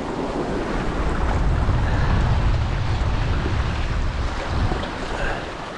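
Wind buffeting the microphone in a heavy low rumble, over sea water washing and splashing among rocks. The rumble is strongest in the middle and eases toward the end.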